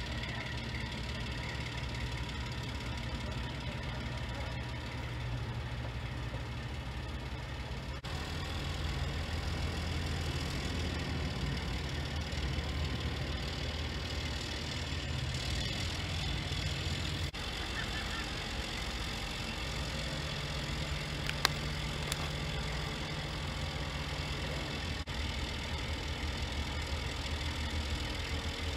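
Mobile crane's diesel engine running steadily as it hoists a ship's mast, getting louder about eight seconds in. There is a single sharp click about twenty-one seconds in.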